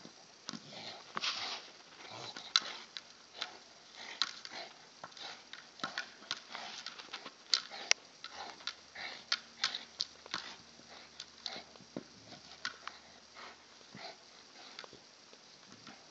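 A dog playing with a large hard plastic ball: irregular clicks and knocks, at times several a second, as it mouths and shoves the ball.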